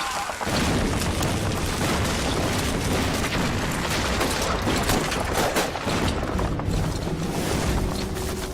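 Battle sound effects: dense, continuous gunfire crackling over low rumbling explosion booms.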